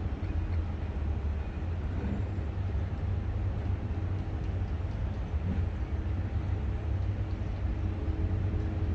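Steady outdoor city ambience: an even low rumble from distant construction works and traffic under the constant hiss of water fountains.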